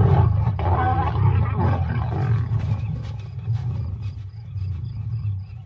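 Lions growling in a fight, deep and rough, loudest at the start and dying away over the next few seconds.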